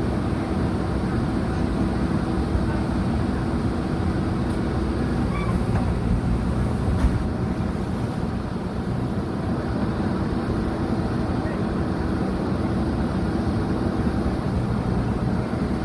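JCB 3DX backhoe loader's diesel engine running steadily under working load, with a single brief knock about seven seconds in.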